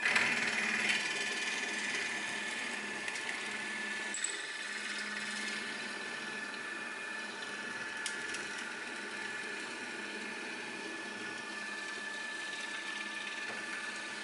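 Drill press with a hollow-chisel mortising attachment cutting a mortise into an old wooden chair rail. The motor runs with a steady whine while the square chisel and auger bore into the wood, loudest about the first second as it bites, with a couple of faint clicks later on.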